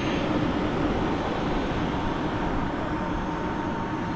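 Model jet turbine engine running: a steady rush with a thin high whine that slowly falls in pitch.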